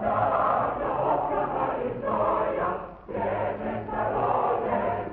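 A choir singing, in sustained phrases with a brief break about three seconds in.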